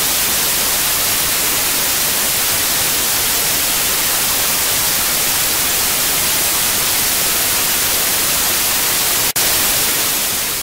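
Loud, steady static hiss with no tone in it, brightest in the treble. It drops out for an instant about nine seconds in and cuts off abruptly at the end.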